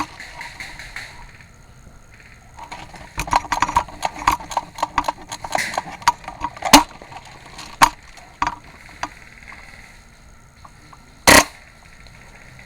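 Airsoft gunfire: a quick run of sharp shots about three to seven seconds in, then a few single shots, and one louder crack near the end.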